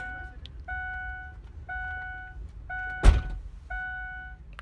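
A car's warning chime dinging steadily about once a second, with a single loud thunk about three seconds in.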